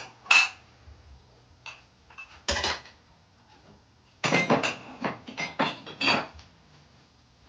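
Cutlery clinking and knocking against a dinner plate: a few sharp clinks, then a quick run of them in the second half, some with a short ring.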